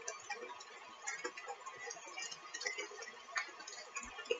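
KitchenAid Professional 5 stand mixer running at low speed, its beater working mashed overripe bananas into the batter: a faint steady motor whine with scattered light ticks and clicks.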